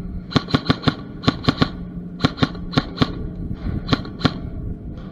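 Airsoft guns firing in quick strings of sharp shots, three or four at a time and several a second, over a steady low hum.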